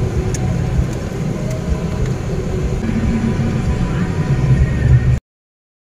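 A car on the move: a steady low road-and-wind rumble. It cuts out to silence about five seconds in.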